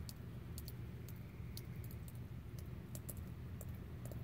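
Faint, irregular high-pitched clicks, a few each second, over a steady low hum.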